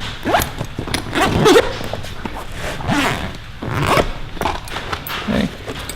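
Zipper on a Veto Pro Pac Tech LC tool bag pocket being pulled, in several short rasping strokes, with bag-handling rustle.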